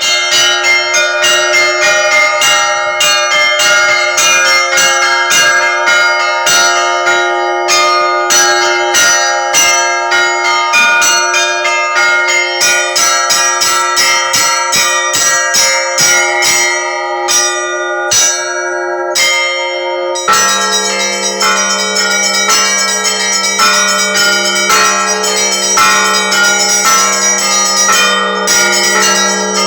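Russian Orthodox church bells ringing in a festive peal: small high bells struck in rapid succession over the sustained hum of larger bells. About two-thirds of the way through, a deeper bell comes in and the ringing merges into a continuous wash.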